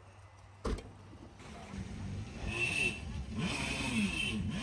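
Yamaha WaveRunner's engine running out of the water on its trailer, revving up and down, with water spraying out of its jet. A single sharp knock comes about a second before the engine noise builds.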